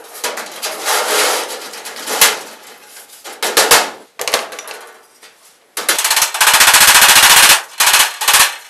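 Galvanised sheet-metal duct being fitted and worked into place, heard sped up in fast motion. First come metal clattering and scraping with a few sharp knocks. From about six seconds in, a rapid, loud rattle of hammer blows on the duct follows.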